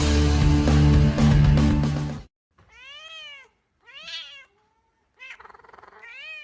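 Loud music that cuts off about two seconds in, then a cat meowing three times, each meow rising and falling in pitch, the last one longest.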